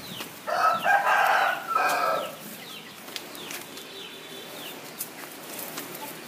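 A rooster crows once, starting about half a second in and lasting nearly two seconds.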